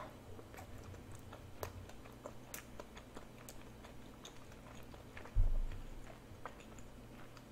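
A person chewing a whole dumpling with the mouth closed: faint, with small scattered mouth clicks. A single low thump about five and a half seconds in is the loudest sound.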